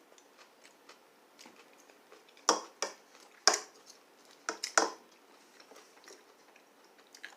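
Close-up chewing of crunchy food, with about five or six sharp crunches in the middle and small mouth clicks in between.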